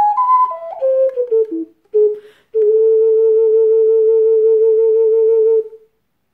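Ceramic transverse ocarina playing a quick descending run of separate notes, then a short note and a quick breath. It ends the piece on one long held low note that fades away near the end.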